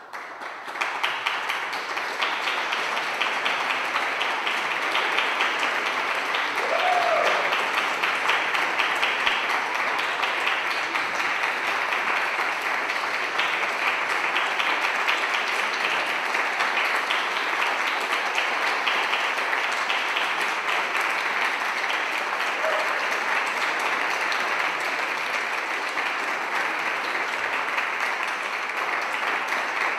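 Concert audience applauding: many hands clapping, swelling quickly out of silence in the first second or two and then holding steady and loud.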